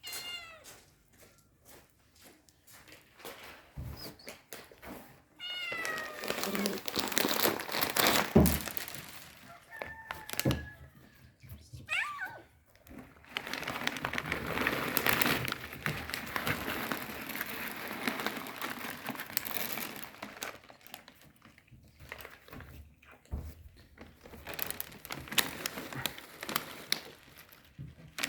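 Cats meowing, a few short calls in the first half, among sharp knocks. This is followed by a long stretch of rustling and crackling noise.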